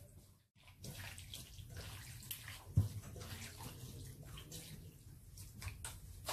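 Hands squelching and kneading raw pork pieces in a wet marinade in a stainless steel bowl, a steady squishing with one louder knock about three seconds in.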